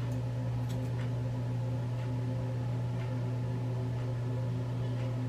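A steady low electrical hum, like a small motor or fan running, fills the bathroom. A few faint snips of hair-cutting shears come through over it, mostly in the first second or two.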